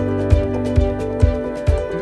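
Background music with a steady beat, about two low thumps a second under held tones.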